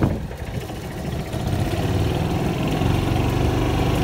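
Golf cart's small engine running as the cart drives along, getting louder about a second and a half in.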